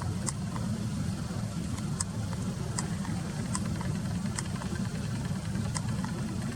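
Steady low engine rumble, like a vehicle idling, with short faint high-pitched ticks about once a second.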